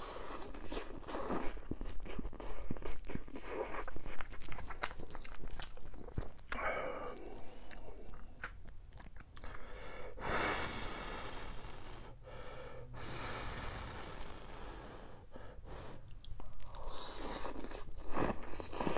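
Instant cup noodles being slurped off a fork and chewed, close to the mouth: several drawn-out slurps between stretches of wet chewing and small mouth clicks.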